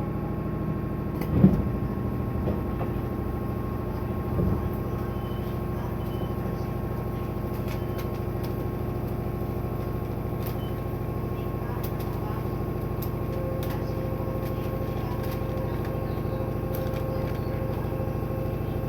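Inside a 205 series 1000 subseries electric train: a steady hum of the car's equipment, with a sharp knock about a second and a half in and a softer one about three seconds later.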